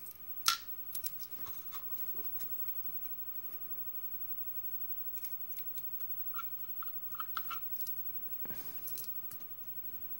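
Faint small metallic clicks and ticks of a brass lock cylinder and its key being worked by hand. A sharp click comes about half a second in, and a cluster of small ringing clicks comes around the middle.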